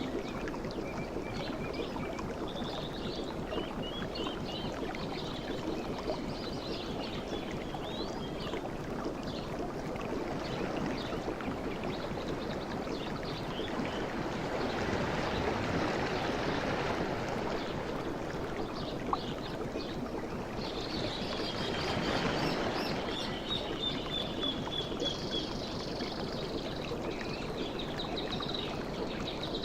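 Sea waves washing steadily, swelling up twice, with forest birds chirping and calling over them, including a falling trill about two-thirds of the way through.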